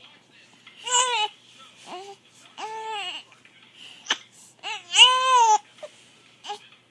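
One-month-old baby fussing with a series of short crying wails that rise and fall in pitch; the loudest cry comes about five seconds in. A sharp, brief hiccup-like catch is heard just after four seconds, from the baby's hiccups.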